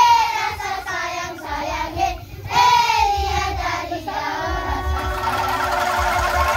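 A group of children singing together. About five seconds in, the singing gives way to the shimmering, rapid rattle of many bamboo angklung being shaken at once.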